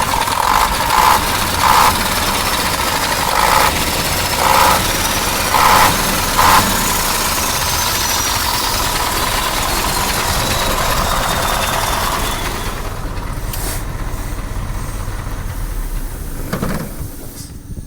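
KAMAZ 740 V8 diesel engine idling evenly, with no knocking or other foreign noises: a sign that it is running well after the rebuild. A few brief louder spurts come in the first seven seconds, and the sound grows quieter and duller about twelve seconds in.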